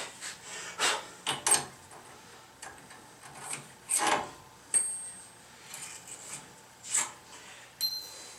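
Hand tools and metal parts being handled at a truck's front wheel hub: short scrapes and rubs every second or so, a longer scrape about halfway, and two brief ringing metal clinks, the last near the end.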